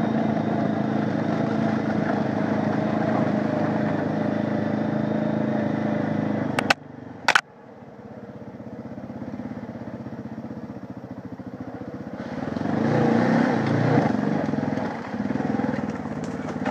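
Honda 500 ATV single-cylinder engine running steadily under way. About seven seconds in there are two sharp clicks and the sound drops off. The engine then builds again and revs louder and more unevenly near the end as the quad climbs over rough ground.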